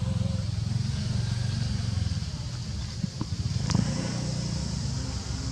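Motorcycle engine idling with a steady low throb, with a couple of light knocks about three seconds in.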